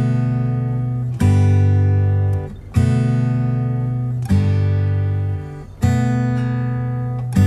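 Background music: acoustic guitar strumming sustained chords, a new chord about every second and a half.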